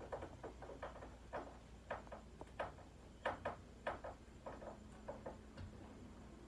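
Light, irregular clicks and taps, a few each second, as a plywood floating shelf is handled and adjusted on its metal wall brackets.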